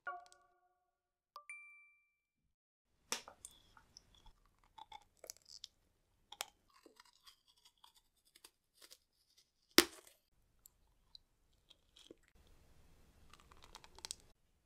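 Close-miked ASMR eating of rainbow-coloured candy: sticky chewing and crunching with scattered wet mouth clicks, and one sharp louder click about ten seconds in. A short electronic chime sounds about a second and a half in, before the chewing.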